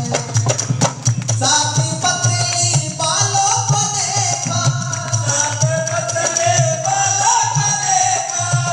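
Music of a Hindi Christian devotional song: a melody line over a steady, rhythmic drum beat.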